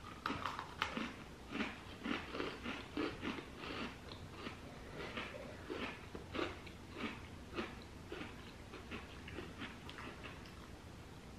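Someone eating an Ultimate Chocolate Oreo, a chocolate sandwich cookie with a thick chocolate cream filling: a run of short, crisp crunches as it is bitten and chewed, a few each second. The crunches grow fainter near the end.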